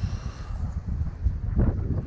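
Wind buffeting the microphone: an uneven low rumble that gusts louder about one and a half seconds in.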